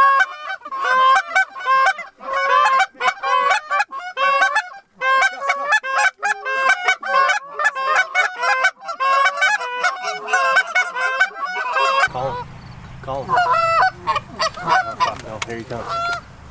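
Canada goose call blown by hand in a fast run of short clucks and honks, calling geese in toward the decoys. About twelve seconds in, a low rumble comes in and the calling turns sparser.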